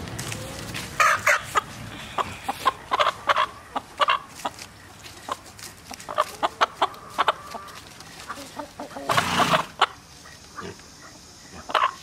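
Chickens clucking in short, repeated calls, with a brief burst of rustling about nine seconds in.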